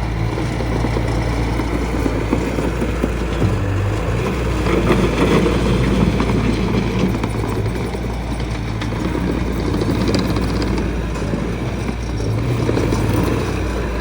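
Diesel engine of a Bobcat T590 compact track loader running steadily, its sound swelling and easing a few times.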